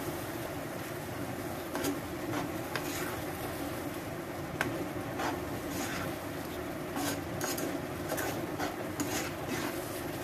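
Metal slotted spatula stirring a thick onion-tomato masala frying in a nonstick pan, making irregular scraping clicks against the pan over a steady low hum. The masala is at the stage where the tomato paste is cooking into the browned onions.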